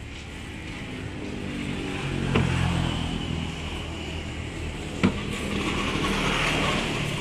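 A motor vehicle's engine running close by, growing louder over the first two or three seconds and staying near until the end. Two sharp clicks come about two and a half and five seconds in.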